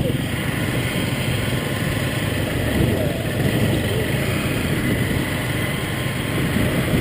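A vehicle engine running steadily, with faint voices underneath.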